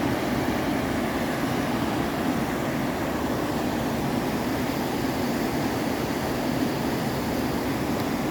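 Mountain stream water rushing over rocks: a steady, unbroken roar of flowing water.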